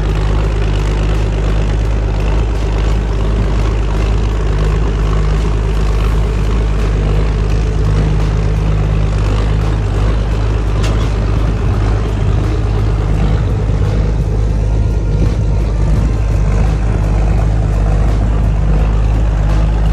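A heavy engine running steadily at a constant speed, a loud unbroken low drone with a steady pitch.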